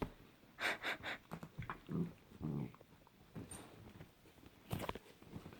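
A dog breathing in several short, quiet puffs, with one sharper sound near the end.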